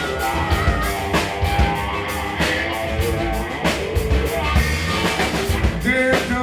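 Blues-rock band playing an instrumental passage between sung verses, with a drum kit keeping a steady beat under guitar.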